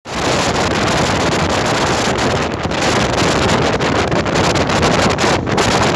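Wind rushing over a phone microphone held out of a moving Indian Railways train, over the running noise of the train, loud and steady.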